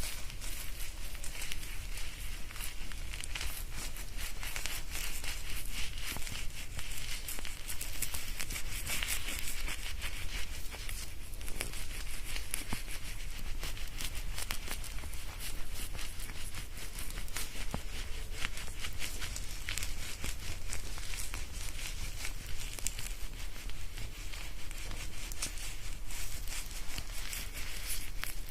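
Hair being shampooed close to binaural microphones: fingers working lather through wet hair and over the scalp, a dense, continuous crackle of many tiny clicks with no pause.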